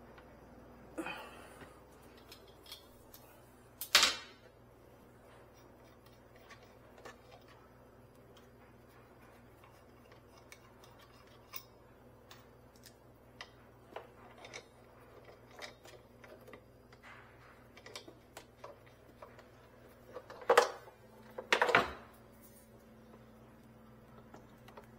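Scattered clicks, taps and knocks of tools and service equipment being handled and set down, with one sharp knock about four seconds in and two louder knocks near the end, over a faint steady hum.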